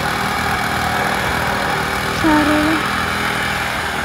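A machine engine running steadily at a concrete slab pour. About two seconds in there is a brief half-second call.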